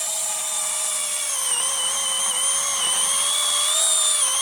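Small brushless battery chainsaw (Nicelyon TPLC S07A) running at full speed as a steady high whine, its pitch sagging slightly now and then as the chain takes load in the wood.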